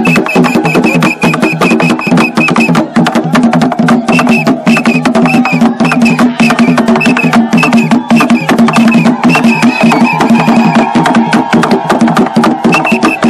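Traditional Bamiléké dance music: rapid, dense hand-struck drumming and clacking percussion, over a steady low tone and a high piping tone that comes and goes in short repeated phrases.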